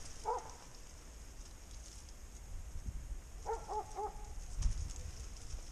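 Hunting dog barking some way off: a single bark near the start, then a quick run of four barks about three and a half seconds in. Footsteps and brush rustling go on underneath.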